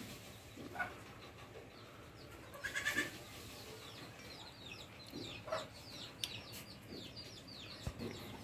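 A goat bleats once, briefly, about three seconds in. From about four seconds on, many short, quick, high chirps follow one after another.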